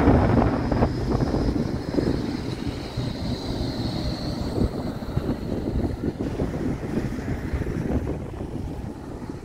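Blackpool Flexity 2 tram running past at close range, a steady rumble with a faint high whine, loudest at the start and easing off. Wind buffets the microphone throughout.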